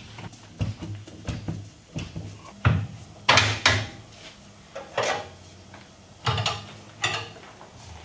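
Irregular metallic clanks and knocks of tyre levers and wheel being worked as a tyre is fitted onto a motorcycle wheel rim, about nine sharp strikes spaced unevenly over a steady low hum.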